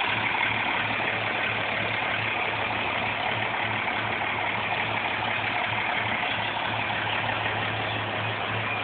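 1973 diesel truck engine idling steadily.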